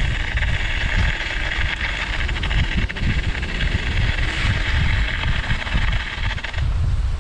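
Wind buffeting the microphone in a loud low rumble, with a steady higher hiss over it that cuts off about six and a half seconds in.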